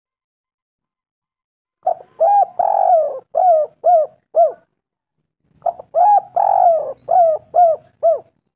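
Spotted dove (tekukur) cooing: two song phrases a few seconds apart, each two short notes, a drawn-out coo, then three short coos.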